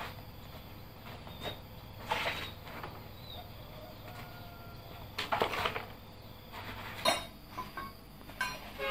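Scattered knocks and clatters of objects being handled on a concrete floor, ending in a cluster of ringing metal clinks from hand tools such as wrenches and sockets. Insects chirr faintly behind.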